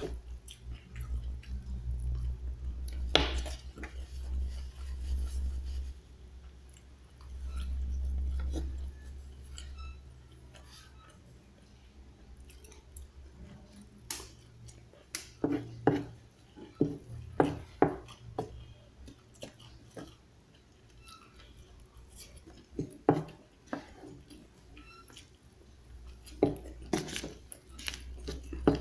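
Eating with a metal spoon and fork: sharp clinks and scrapes of the cutlery as food is scooped, with chewing between them. The clinks come in a cluster past the middle and again near the end.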